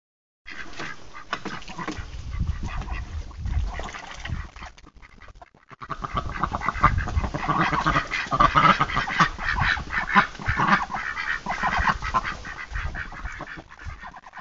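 A flock of poultry calling all at once in a dense, overlapping clamour, with a brief lull about five seconds in and a low rumble underneath.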